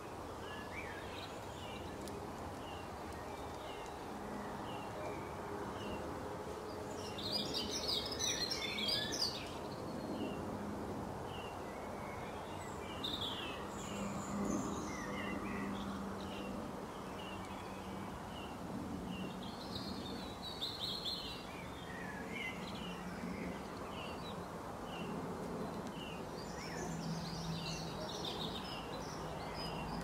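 Birds chirping and singing: a short chirp repeated about once a second, with a few louder bursts of twittering song, over a steady low hum of background noise.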